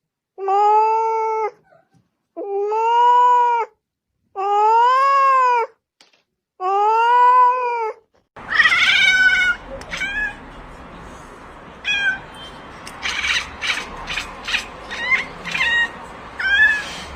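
A cat meowing loudly, four long drawn-out meows about two seconds apart, each bending up and then down in pitch. About eight seconds in the sound cuts to steady background noise with short, high-pitched cries and a run of clicks.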